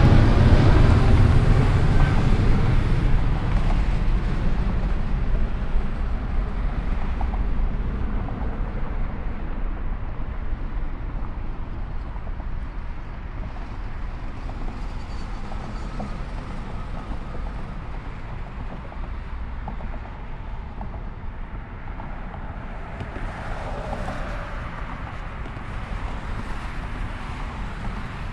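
Departing jet airliner's engines, loud at first and then fading steadily over about twelve seconds into a distant rumble as the aircraft climbs away. A brief, quieter swell of noise comes near the end.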